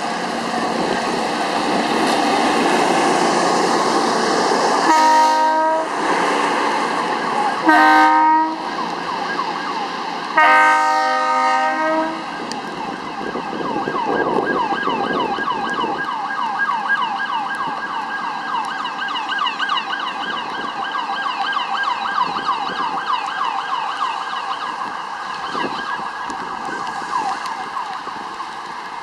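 Rail maintenance machines running past on the track, then three horn blasts, the last one longest, about five, eight and eleven seconds in. From about thirteen seconds on, a police car's siren sounds with a fast, repeating rise and fall in pitch.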